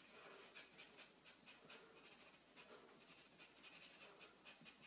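Faint scratching of a black Sharpie marker's felt tip on paper, in quick repeated strokes as it colors an area solid black.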